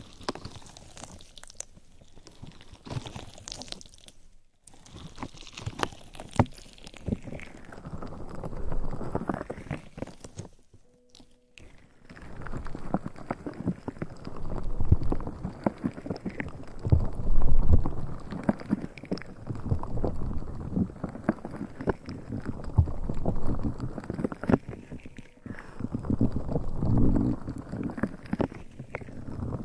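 Close-miked ASMR trigger sounds: dense crackling, clicking and rustling right on the microphone, with short breaks about four and eleven seconds in.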